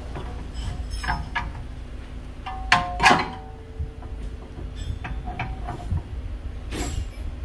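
Metal clinking and knocking on a car's brake rotor and hub, a handful of sharp strikes with short metallic rings; the loudest comes about three seconds in and its ring hangs on for over a second.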